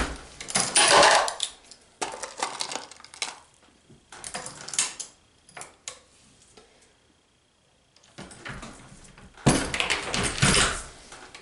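Hornady Lock-N-Load progressive reloading press being cycled by hand while loading 9mm Luger rounds: metallic clicks and clinks of brass cases, bullets and press parts. There is a quiet gap about seven seconds in, then a louder run of clatter near the end.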